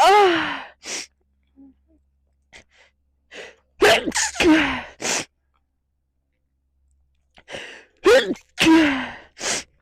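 A woman sneezing again and again in a fit. Loud sneezes drop in pitch and come in quick pairs about every four seconds, with short, sharp in-breaths between them.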